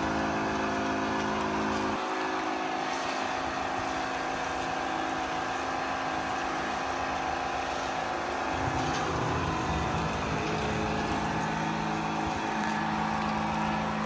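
Pressure washer running: a steady motor and pump hum under the hiss of water spraying from the lance. The low part of the hum drops away about two seconds in and comes back past the middle.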